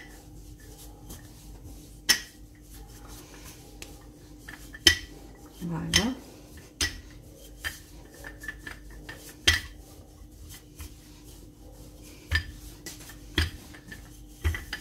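Rolling pin rolling out laminated pastry dough on a stone countertop, with irregular sharp knocks and clacks as the pin and hands meet the counter, about a dozen over the stretch.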